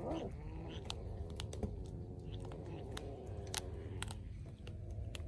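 Kitten chewing and biting raw fish: a run of sharp, wet clicks and crunches as its teeth work through the flesh and bones. A short cat vocalisation comes right at the start.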